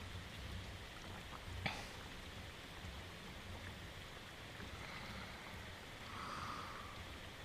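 Steady, faint rain, with a single sharp tick about a second and a half in and a soft, faint sound about six seconds in.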